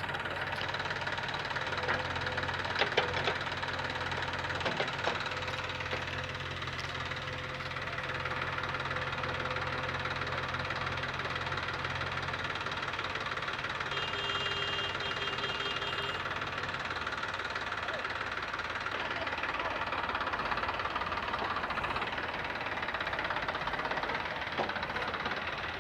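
Heavy diesel engine running with a steady low note that fades out about halfway through. A few sharp knocks come in the first few seconds, and a brief high tone sounds near the middle.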